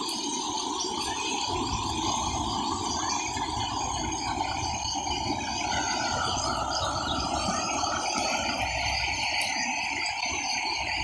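Steady rushing of muddy floodwater with a low rumble underneath, and a high, pulsing chorus of frogs and insects over it.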